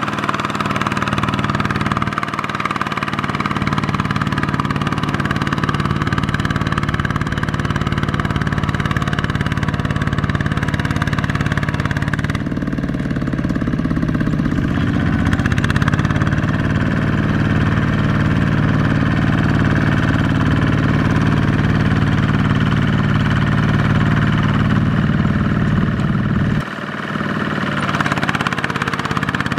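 Kubota ZT155 single-cylinder diesel engine of a two-wheel power tiller running steadily as it pulls a loaded trailer through sticky mud. Its pitch shifts about halfway through, and it drops briefly near the end.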